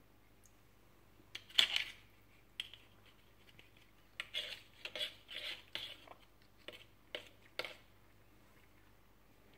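Irregular knocks and scraping rattles of a plastic stick against a stainless steel sink, a loud clatter about a second and a half in, then a run of quicker rattles in the middle that stops well before the end.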